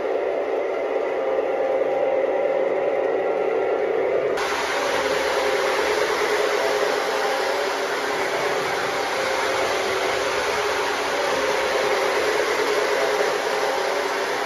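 Lionel Canadian Pacific 2373 diesel set running on O-gauge track: a steady whirring hum of its electric motors and rolling wheels. About four seconds in it turns suddenly harsher and hissier.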